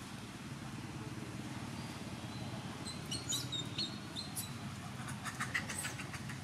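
Birds chirping: a few short high chirps about three seconds in, then a quick rapid run of chirps about five seconds in, over a steady low background rumble.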